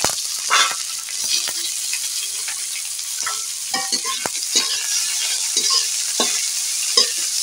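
Sliced onions, garlic paste and a dried red chilli sizzling in hot oil in a metal kadai, with a steady hiss. A metal spatula scrapes and taps against the pan many times as the onions are stirred.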